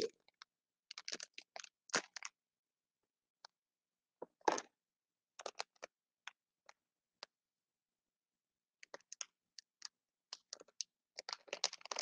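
Small plastic packet of grated cheese being torn open and handled: scattered short crinkles and clicks with quiet gaps between them, coming more often near the end.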